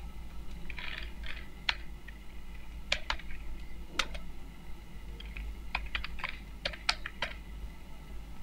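Typing on a computer keyboard: scattered keystrokes, some single and some in quick runs of several clicks, with the busiest run in the second half. A steady low hum sits underneath.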